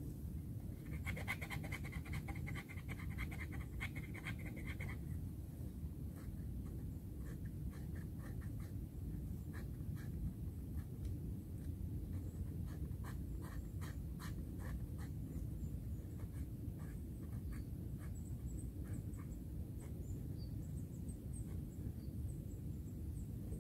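Hand work at ground level: a rapid run of scraping strokes for a few seconds, then scattered light clicks and scratches, over a steady low rumble. Faint high bird chirps come in near the end.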